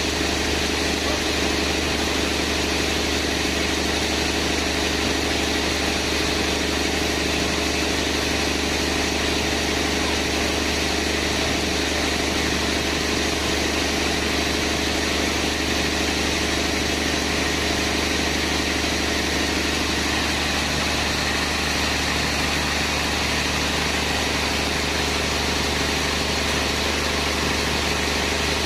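Sawmill machinery running steadily: an engine-like hum with several steady tones that shift slightly about twenty seconds in.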